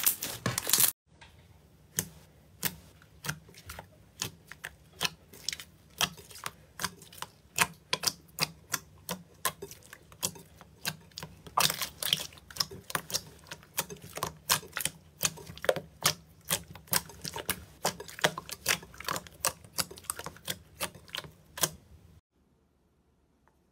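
Thick slime being pressed and kneaded by hand in a glass bowl, giving sharp clicking pops about twice a second as pockets of air are squeezed out. A brief dense crackling squish of slime opens it, and the clicks stop abruptly near the end.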